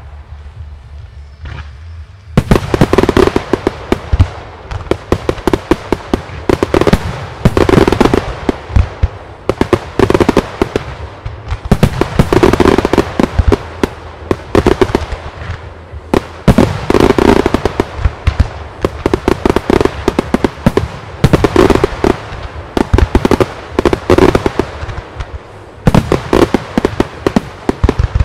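Professional fireworks display: a dense barrage of aerial shell bursts, bangs and crackle that starts about two seconds in and swells and eases in waves every couple of seconds.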